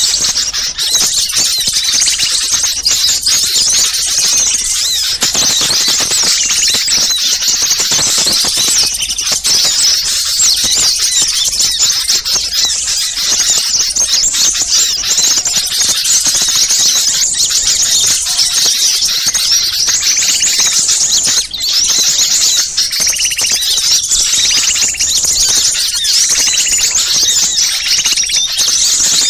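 A dense, unbroken chorus of many small birds' rapid, high-pitched scolding chatter, layered together in a bird-lure recording meant to sound like a noisy flock mobbing.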